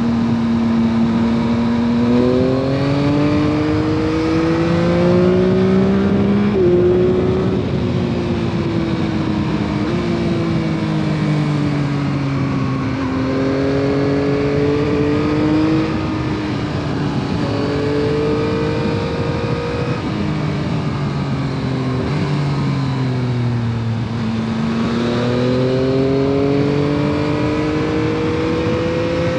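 2021 Yamaha MT-09 SP's three-cylinder engine through its stock exhaust, heard from the rider's seat while riding. The engine note climbs and falls in pitch several times as the bike accelerates and slows, with a quick pitch step about seven seconds in and a long climb near the end.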